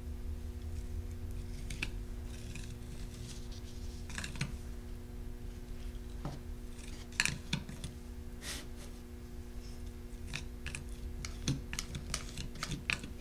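Scattered light clicks and scrapes of a spatula working textured paste through plastic netting and dipping into a jar, with the netting rustling as it is handled. The clicks come irregularly, bunching up in the second half. Underneath is a steady low electrical hum.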